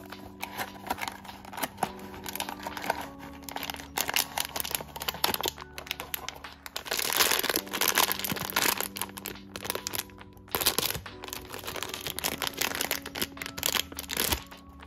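Crinkly plastic blind-box bag handled and worked open by hand: dense quick crackling and rustling, loudest about seven to nine seconds in and again near the end. Soft background music plays underneath.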